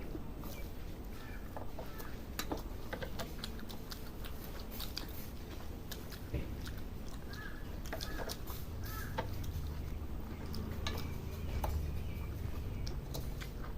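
Close-up eating sounds: chewing, with many small irregular mouth clicks and smacks as rice and curry are eaten.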